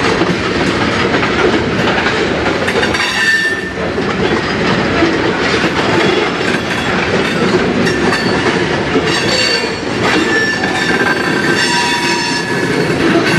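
Freight train of railway tank cars rolling slowly past, steel wheels rumbling and clacking on the rails, with short high-pitched wheel squeals several times: once about three seconds in, again around nine to ten seconds and near the end.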